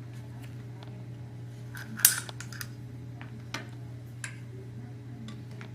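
Metal parts of a door-knob lock clicking and clattering as they are handled and taken apart, with one sharp, loud clatter about two seconds in and a few lighter clicks after it.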